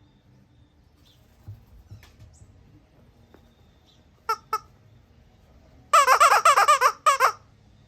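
Squishy squeaky toy being squeezed: two short squeaks about four seconds in, then a quick run of squeaks lasting about a second and a half near the end.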